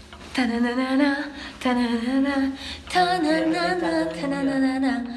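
A woman's voice singing a slow melody in long held, wavering notes, phrase after phrase, with a lower second line joining for about a second and a half in the middle.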